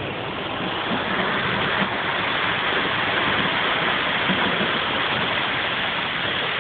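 Storm rain and wind rushing over a boat's covered deck: a steady loud hiss that swells slightly about a second in.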